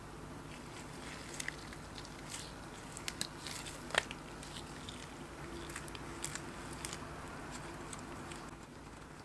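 Small plastic clicks and taps from a Dippin' Dots lip balm tube being handled in latex-gloved hands and its cap pulled off, a scatter of them with the sharpest about four seconds in, over a steady low background hum.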